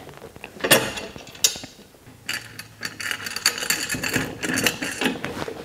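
Metal carriage bolts, washers and lock nuts clinking against a metal compressor mounting bracket as they are set in place and the nuts are threaded on loosely by hand. Two sharp clicks come in the first second and a half, then a run of rapid small metallic clicks and rattles from about two seconds in.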